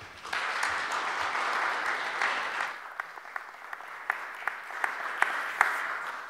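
Congregation applauding, a dense spell of clapping that thins out about halfway so that single claps stand out, then fades away near the end.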